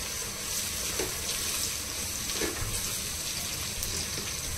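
Onions frying in hot oil in a pot, a steady sizzle.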